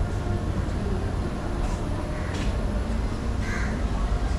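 A bird calling three times with short calls in the second half, over a steady low rumble.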